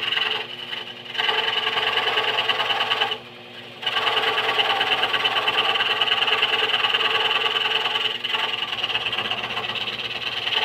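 Harbor Freight scroll saw running, its reciprocating blade cutting wood with a fast, even buzz. The sound drops away briefly twice, about half a second in and again about three seconds in.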